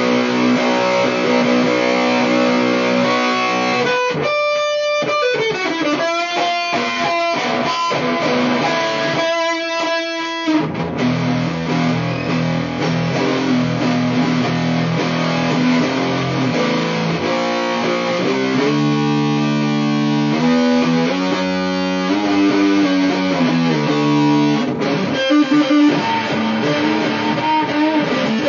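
Electric guitar played through a homemade distortion/overdrive circuit built around an MPSA13 transistor and LM386 and TDA2003 amplifier chips. Mostly held, distorted chords, with short runs of separate picked notes about four and nine seconds in.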